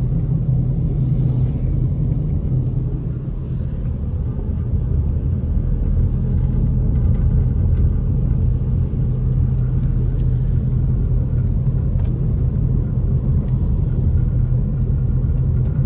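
Car driving on wet pavement, heard from inside the cabin: a steady low rumble of engine and tyre noise.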